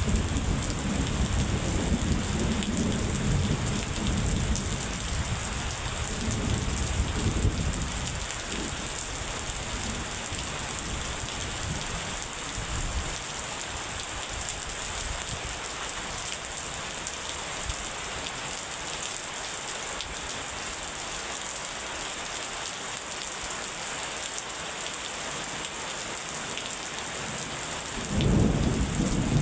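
Steady rain falling in a thunderstorm, with rolling thunder rumbling through the first several seconds and dying away, then a new rumble of thunder starting near the end.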